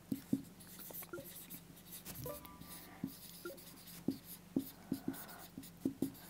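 Marker pen writing on a whiteboard: faint short strokes and ticks as words are written.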